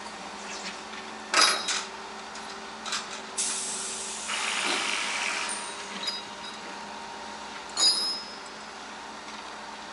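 Two sharp metallic clanks, about a second and a half in and again near eight seconds, the second one ringing briefly. Between them comes a hiss lasting about two and a half seconds, over a faint steady hum.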